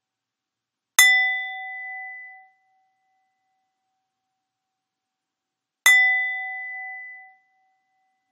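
A small bell or chime struck twice, about five seconds apart; each strike rings at a few clear pitches and dies away within a second or two.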